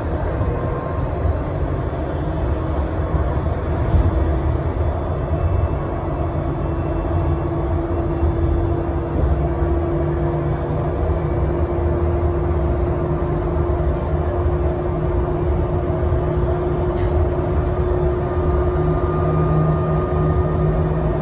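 Cabin noise of a Solaris Urbino 18 electric articulated bus under way, heard inside: a steady low rumble with a thin whine that rises slightly in pitch over the first several seconds and then holds. A few light clicks or rattles come through now and then.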